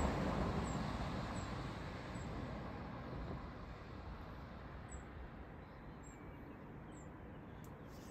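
A vehicle's low rumble dying steadily away, with faint, short, high chirps every second or so.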